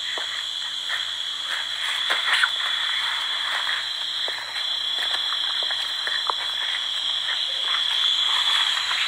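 Steady night-time chorus of calling frogs, a continuous high-pitched drone, with a few faint clicks scattered over it.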